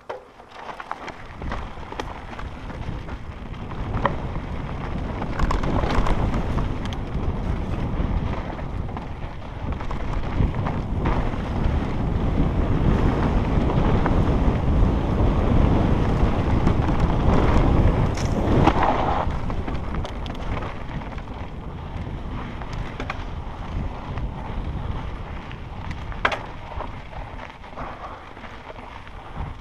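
Wind rushing over the camera microphone and tyres rolling on a dry dirt trail as a mountain bike descends at speed, with scattered sharp clicks and knocks of the bike rattling over bumps. The rush builds over the first few seconds, is loudest midway, and eases toward the end.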